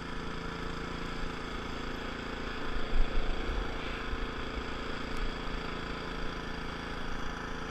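Small engine of a snowblower running steadily, with a brief louder swell about three seconds in.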